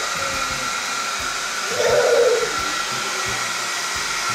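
Handheld hair dryer running steadily, a constant rushing of blown air with a faint steady whine.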